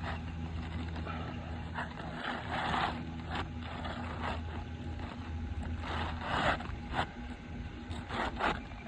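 An asphalt shingle being slid into place, heard as a few short rasping scrapes with light clicks. A steady low hum runs underneath.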